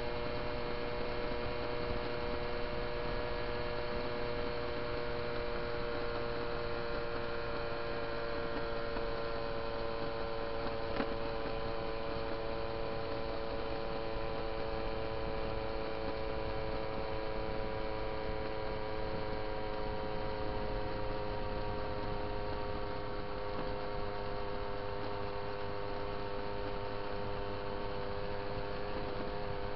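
Moped's small two-stroke engine running at a steady cruise, a buzzing drone whose pitch sinks slowly over the stretch.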